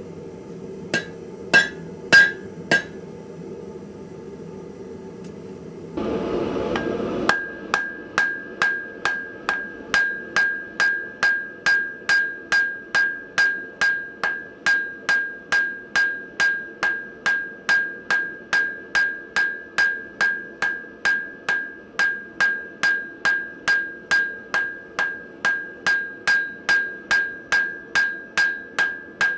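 Hand hammer striking hot steel on an anvil while forging a post vise's front jaw, necking it down and drawing out its lips. A few scattered blows, then after a brief rush of noise about six seconds in, a steady run of blows about two a second, each ringing with a clear tone.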